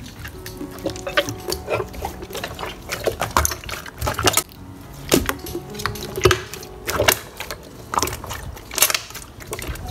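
Hands playing with slime: it is squeezed, pressed and stretched, giving irregular clicks and pops, a few every second, with some louder snaps among them.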